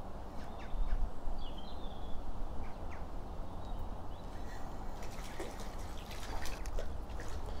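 Light splashing and dripping of water, with a short bird chirp about a second and a half in. A run of small clicks and taps comes in the last few seconds.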